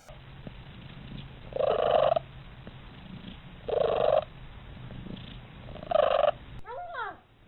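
Domestic cat purring steadily, with three short, loud calls about two seconds apart, then a brief meow-like call near the end.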